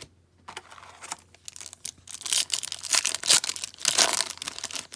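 A trading card pack's wrapper torn open and crinkled by hand: a run of crackling and tearing, growing denser and louder from about two seconds in.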